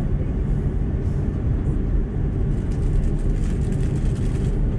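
Airbus A330 airliner's engines and cabin giving a steady low rumble, heard from inside the cabin as the jet taxis onto the runway at low thrust.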